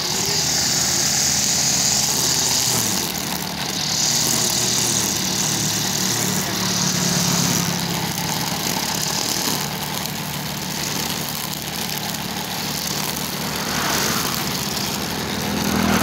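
Honda brush cutter's small petrol engine running at cutting speed as its spinning head cuts grass. The engine speed and high whine rise and ease every few seconds.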